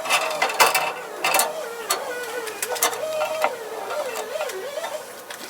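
Metal clinks and clanks with a wavering whine as a sawmill band blade is handled and fitted back onto the mill.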